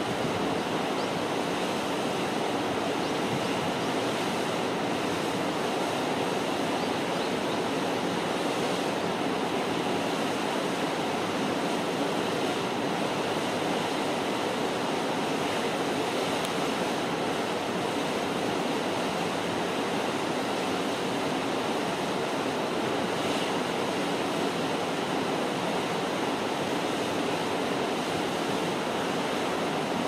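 Steady rushing of flowing water below a dam: an even, unchanging hiss.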